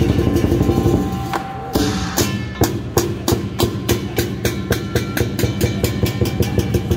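Lion dance percussion. A fast, dense roll breaks off about a second in. After a short pause the big drum and clashing cymbals beat a steady rhythm of about four to five strokes a second.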